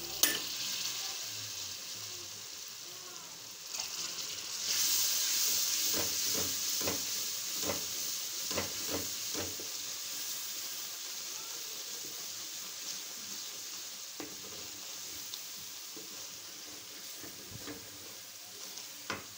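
Tomato-and-spice masala sizzling in hot oil in an aluminium karahi while a wooden spoon stirs and scrapes it. The sizzle gets louder about five seconds in, with a run of spoon scrapes and knocks against the pan over the next few seconds.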